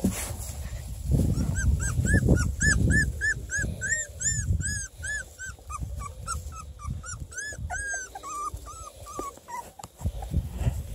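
A 2.5-week-old beagle puppy crying in a fast run of short, high squeaks, about three a second, that drop slightly in pitch toward the end. Rustling of movement in the wood-shaving bedding comes through underneath, loudest in the first few seconds.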